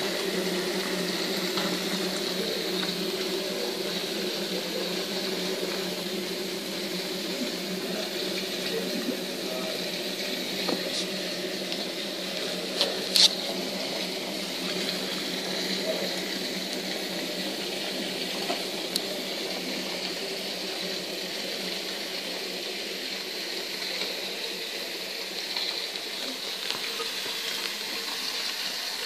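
Water running steadily, with two sharp clicks about 13 seconds in.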